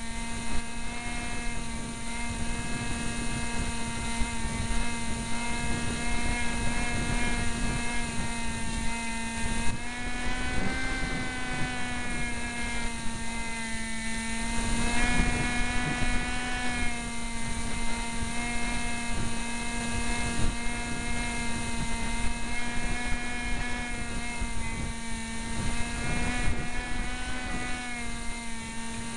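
Onboard sound of a Cox SkyCruiser RC plane's motor and propeller running near full power as a steady high whine, wavering in pitch a little about a third of the way in, with wind buffeting the camera microphone underneath.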